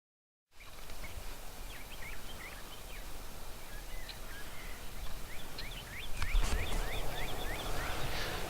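Rio Grande wild turkeys calling, a run of many short chirping notes, over a low wind rumble that grows louder about six seconds in.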